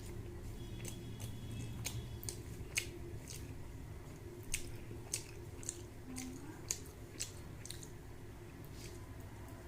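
Close-up eating sounds: a person chewing a meal of rice and fish curry, with a dozen or so irregular wet mouth clicks and smacks over a steady low hum.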